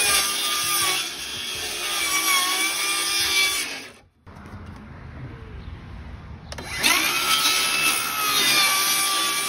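Circular saw cutting through a sanded plywood panel board, its motor whine dipping and wavering in pitch under load. The sound cuts off about four seconds in and stays much quieter for about two seconds, then the saw is loud again.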